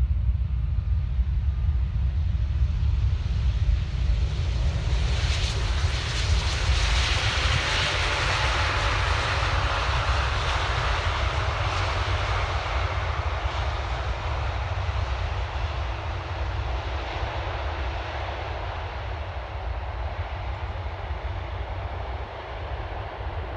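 Jet engines of an Airbus A330 cargo plane on the runway: a roar that swells about five seconds in, peaks, then slowly fades, over a constant low rumble.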